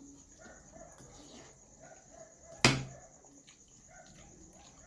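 One sharp knock about two and a half seconds in, over faint low background sounds.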